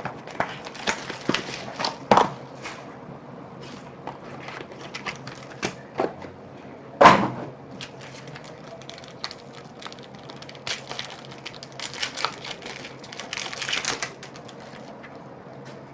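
Hands tearing and peeling open a foil card-pack wrapper and handling the cards, a run of crinkling rustles and small clicks. There is one louder sharp knock about seven seconds in, and a denser burst of crinkling near the end.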